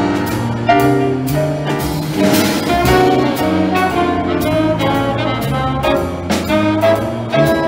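Live jazz band: trombones and a saxophone play an ensemble melody over a drum kit keeping time on the cymbals, with a cymbal crash about two seconds in.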